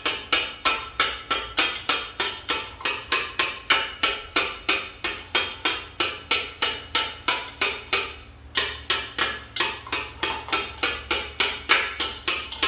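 Hammer lightly tapping a brass punch against a roller bearing, driving it into an M5R1 transmission case: quick, even metallic taps about four a second, with a short pause about two-thirds of the way through.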